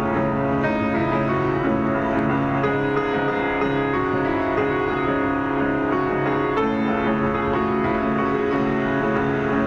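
Instrumental background music led by piano, with held chords that change every second or so at a steady level.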